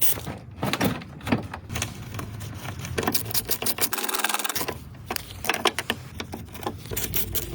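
Rapid, irregular clicking and knocking of mechanical work over a low steady hum; the hum drops out briefly about four seconds in.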